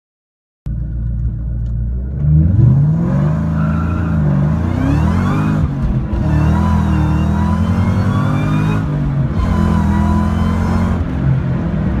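Whipple twin-screw supercharger on a 2003–2004 SVT Cobra's 4.6-litre V8, heard from inside the cabin under acceleration: a high whine over the engine, rising in pitch with the revs. It dips briefly a couple of times as the revs fall and climb again. It starts about a second in.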